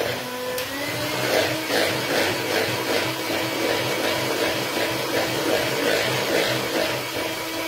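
Electric hand mixer running, its beaters working hazelnut flour into a batter of egg yolks, honey and coconut oil in a plastic bowl. The motor tone steps up slightly in pitch about a second in, over a steady rhythmic churning.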